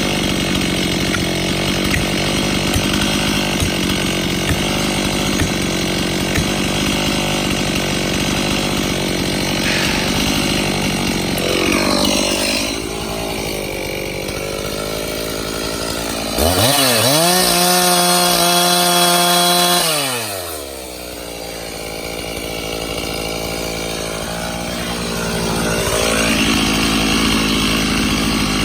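Stihl MS391 two-stroke chainsaw cutting into a hickory trunk, the engine running steadily under load. About halfway through it comes out of the cut, revs freely up to a high pitch for a few seconds, then drops back to idle before going back into the wood near the end.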